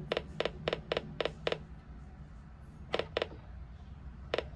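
Buttons on a weather alert radio pressed repeatedly to set its clock, each press a short, sharp click: a quick run of about four a second for the first second and a half, then two more about three seconds in and one near the end.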